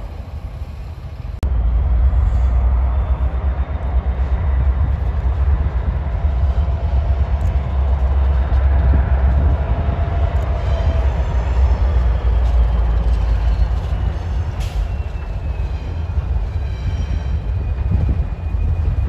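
EMD diesel locomotive approaching slowly, its engine a loud, steady low rumble that steps up abruptly about a second and a half in, with a faint high whine slowly falling in pitch.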